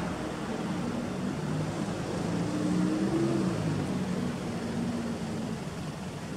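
Honda Civic Type R EK9's 1.6-litre B16B VTEC inline-four idling through an aftermarket Fujitsubo exhaust manifold and muffler. The idle note wavers, rising slightly in pitch and level around the middle.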